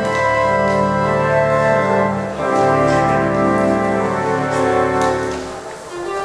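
Organ music: slow sustained chords that change every second or so, with a brief lull near the end before a new chord sounds.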